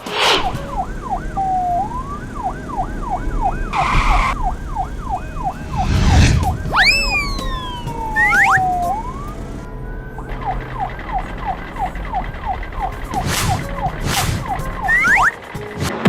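Cartoon sound effects: a rapid warbling siren rising and falling about three to four times a second, cut through by a whoosh about four seconds in, a thump about six seconds in, and a few falling whistle-like glides; the siren breaks off briefly near the middle and then resumes.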